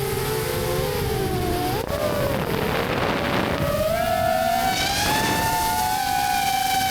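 Motors and propellers of a 5-inch FPV quadcopter whining in flight, heard from its onboard camera. The pitch climbs and dips with the throttle, with rushes of wind about two and five seconds in.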